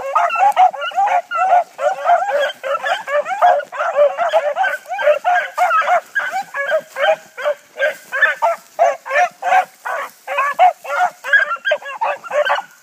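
A pack of hounds baying and barking in a rapid, overlapping chorus as they run a scent trail, several calls a second with no break.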